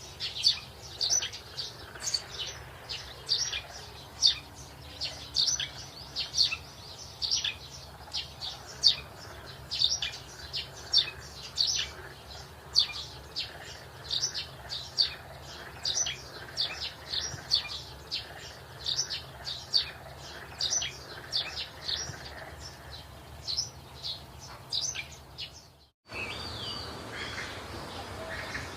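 A bird chirping over and over, short high notes about twice a second, until the sound cuts off suddenly near the end and a softer, different birdsong over a background hiss takes over.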